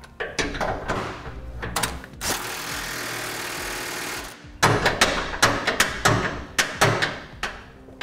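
Cordless impact wrench on a long socket extension tightening bolts. It runs steadily for about two seconds, stops sharply, then fires a string of short hammering bursts, about three a second, as the bolts seat.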